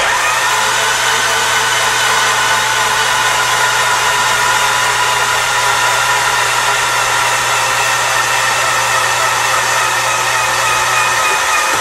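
Starter motor cranking a remanufactured 1999 Honda Civic engine with the spark plugs removed, so it spins freely with no compression, a steady even whir. The engine is being turned over to circulate oil and build oil pressure before its first start.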